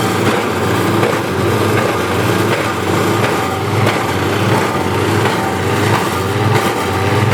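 Engine-driven wood chipper running under load, its engine hum pulsing steadily while wood is crunched and splintered through the machine with a continuous crackle.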